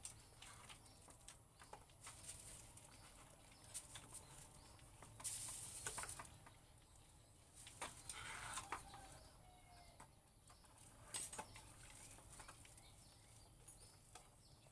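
Quiet, scattered clicks and knocks of angle-grinder parts being handled and fitted during reassembly, with a short rustle about five seconds in and a sharper click about eleven seconds in. Faint bird calls in the background.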